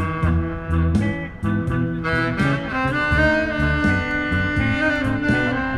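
Instrumental saxophone music over a moving bass line, with a long held note near the middle.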